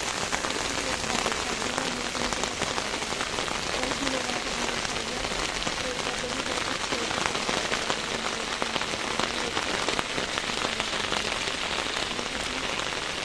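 Heavy rain falling on a wet concrete roof terrace: a steady, dense hiss of drops splashing on the floor.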